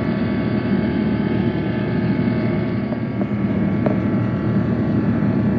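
Steady cabin noise of a jet airliner in flight: an even drone of engines and rushing air, with a constant hum on top.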